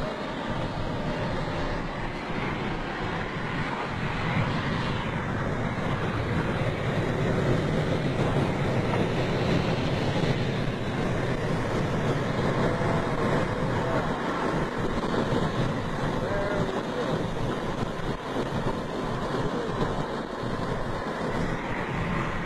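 Steady road and wind noise inside a moving car: an even rushing with no clear engine note.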